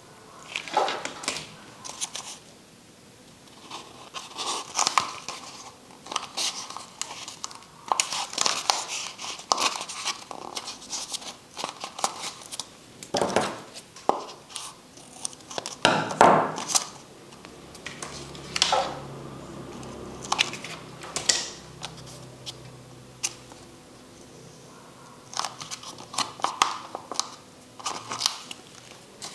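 Craft paper crinkling and rustling in irregular bursts as it is handled, with occasional short clicks.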